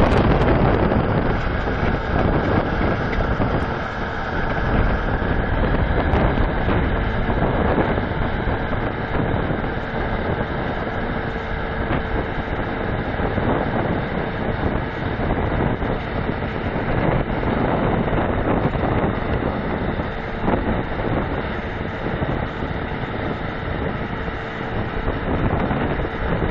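Diesel engines of a tracked Meiklem trenchless drainage machine and its crawler gravel hopper running steadily under load as they creep along laying drain, with a faint steady whine held through most of the stretch.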